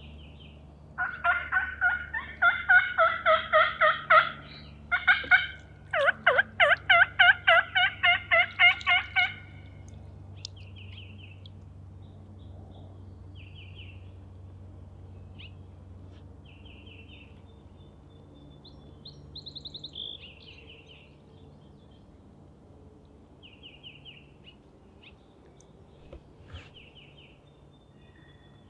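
Turkey call worked by a hunter, a loud run of rapid hen-style yelps in two series, sounded to draw a response from a gobbler. Afterwards small songbirds chirp and trill briefly now and then.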